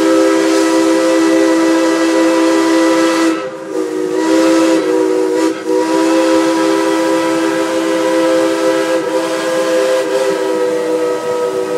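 Steam locomotive whistle blowing in long held blasts, several notes sounding together as a chord, with brief breaks about three and a half and five and a half seconds in.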